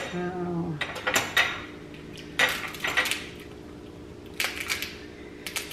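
Sharp cracks and clicks as a steamed lobster's shell is broken apart by hand, mixed with cutlery clinking on dishes, a few at a time about a second apart, over a faint steady hum.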